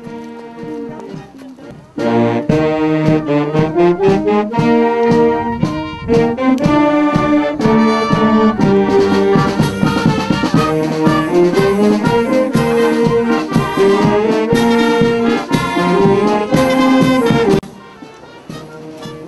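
Youth marching wind band of flutes, saxophones and brass horns playing a tune together. It comes in loud about two seconds in and drops away sharply near the end, leaving fainter music.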